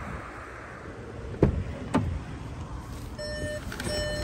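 Two sharp clicks from the SEAT Ibiza's door as it is opened, then the car's electronic warning chime starting about three seconds in, a steady pitched beep repeating a little faster than once a second.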